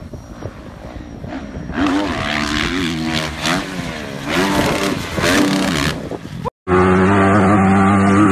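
Dirt bike engines revving, pitch rising and falling repeatedly with the throttle. After a brief gap, another dirt bike runs loud at steady high revs.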